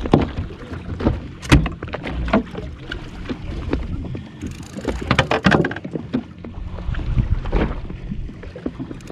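Sea water slapping and splashing against a drifting jet ski's hull in a run of irregular knocks. The loudest slaps come about a second and a half in and again around five seconds in.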